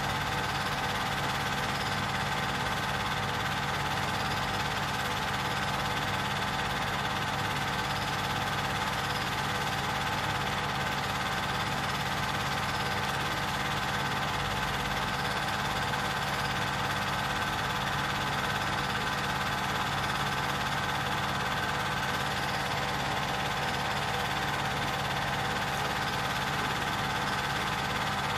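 Film projector running: a steady mechanical hum and whir with several fixed tones, unchanging throughout.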